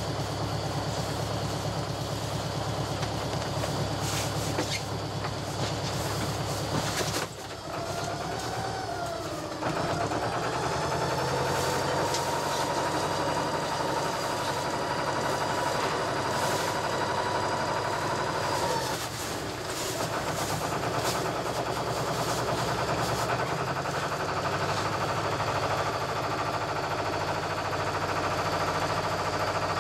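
Volvo Penta MD2B two-cylinder saltwater-cooled marine diesel running steadily with a clattering beat. A higher whine that wavers, then holds steady, comes in about seven seconds in and stops about twelve seconds later.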